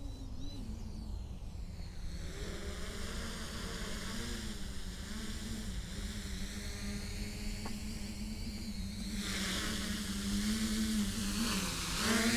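Electric quadcopter's motors and propellers whirring with a steady hum, getting louder as the drone flies in close, with a sweeping whoosh in the high part of the sound as it nears.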